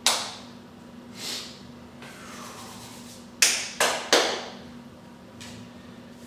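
Hands clapping while chalking up for a grip lift: a sharp clap at the start, a softer one about a second later, then three loud claps in quick succession near the middle.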